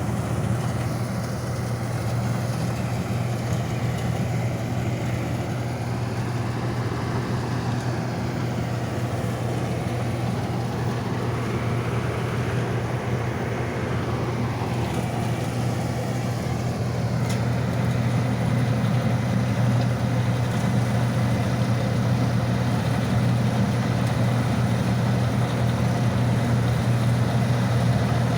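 Rice combine harvester running steadily as it cuts paddy: a constant low engine drone, a little louder in the second half.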